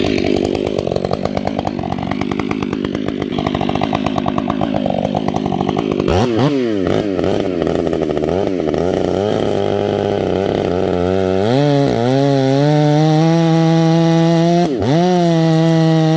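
Stihl 500i chainsaw, a large fuel-injected two-stroke, running. It is blipped up and down several times, then held at full throttle as its freshly square-ground semi-skip chain cuts into a tree stump, dipping briefly once near the end.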